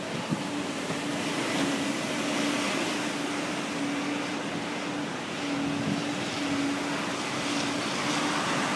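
Wind buffeting the microphone over the wash of breaking surf, with a steady engine drone that drops out and returns several times.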